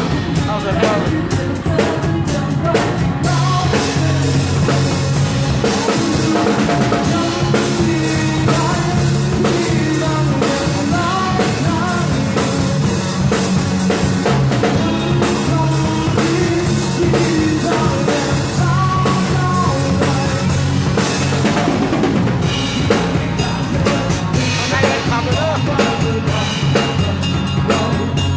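A live rock band playing on drum kit, bass and guitars, with the drums loud and steady throughout.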